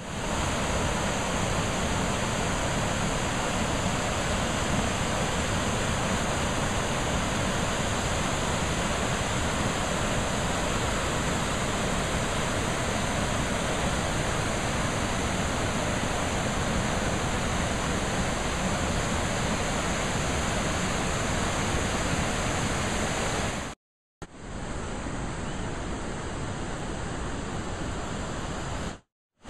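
Steady rush of a mountain river and waterfall, an even wash of water noise. Near the end it cuts out for a moment and comes back a little quieter.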